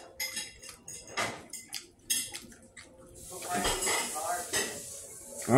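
Metal spoon clinking and scraping against a dish: several sharp, ringing clinks in the first three seconds, then quieter handling.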